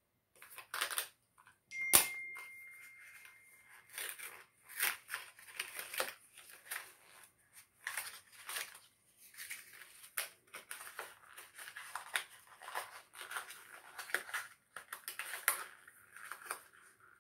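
Product packaging being cut, torn open and crinkled by hand, in irregular rustling bursts. About two seconds in there is a single sharp click followed by a brief thin ringing tone.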